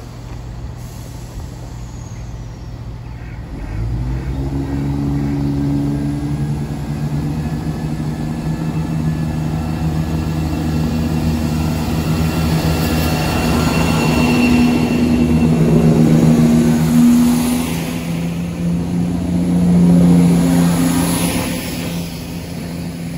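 Diesel multiple unit's underfloor engines running close by, powering up about four seconds in and then pulling hard with a steady low drone, with a faint high whine in the middle.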